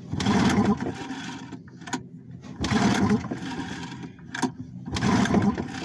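An old outboard motor being pull-started with the choke out: three pulls on the recoil starter, about two and a half seconds apart, each spinning the engine over briefly without it catching. A short click follows each pull as the cord rewinds. The engine will not fire.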